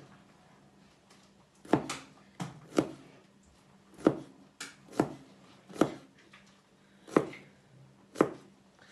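Kitchen knife slicing garlic cloves on a plastic chopping board: about nine separate, unevenly spaced knocks of the blade on the board, starting nearly two seconds in.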